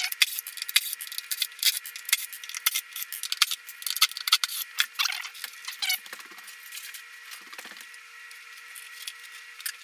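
Screws being backed out of a speaker's passive-radiator ring with a driver bit and screwdriver: fast metallic clicking and rattling, busiest in the first six seconds and sparser after.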